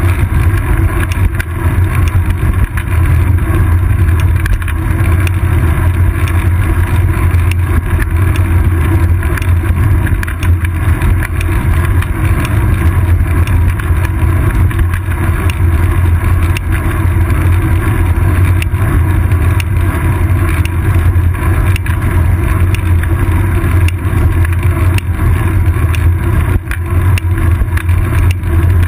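Steady low rumble of wind and road vibration from a bicycle being ridden, picked up by a GoPro Hero 2 in its housing on the seat post, with many small knocks from bumps in the road surface.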